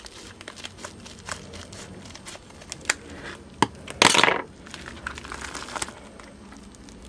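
Scissors cutting open a paper mailer envelope: sharp snips of the blades and the envelope paper crinkling and rustling as it is handled, with one louder half-second burst of noise about four seconds in.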